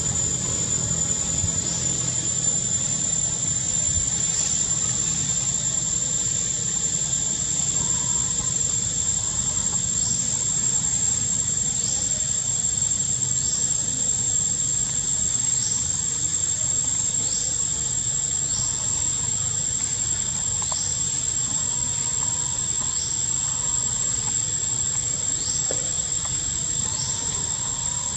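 Insects droning in a steady high-pitched whine, with short rising chirps repeating every second or two and a low steady rumble underneath.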